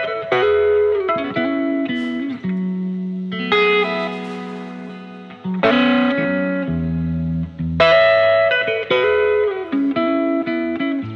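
Background music: a guitar playing a slow run of chords, each struck and left to ring.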